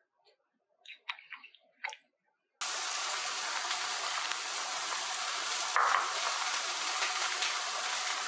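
A few light chopstick taps on ribs and vegetables in a clay pot, then, about two and a half seconds in, the broth in the clay pot boiling hard: a steady bubbling hiss. Briefly louder about six seconds in, as the spices are tipped in.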